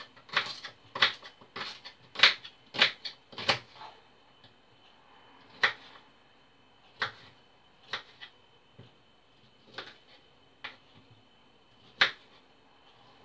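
Kitchen knife chopping broccoli on a wooden chopping board: a quick run of sharp chops for the first few seconds, then single chops every second or two.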